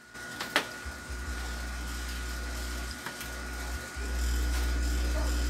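Steady low mains hum through the speaker from a repaired IRS2092 class-D amplifier module, dipping briefly twice around the middle and getting louder about four seconds in, with a couple of light clicks near the start. The hum shows the amplifier is passing signal again after its open 100-ohm resistor was replaced.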